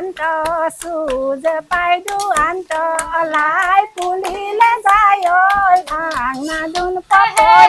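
Women singing a traditional Deori song together, with hand claps keeping a steady beat of about two to three claps a second.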